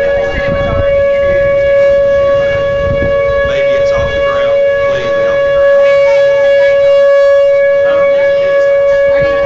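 Outdoor tornado warning siren sounding a steady, unbroken wail, over a low rumble.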